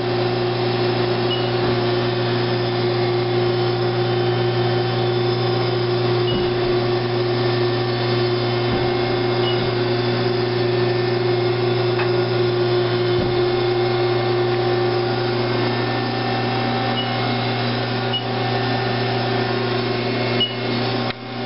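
2006 Haas SL-20T CNC lathe with live tooling running under power: a steady mechanical hum with a held tone over it and a few faint short high blips scattered through.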